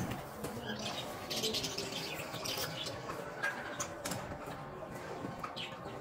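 Tarpaulin sheets rustling and flapping in irregular bursts as they are pulled down over wire-mesh bird cages, with caged birds calling faintly in the background.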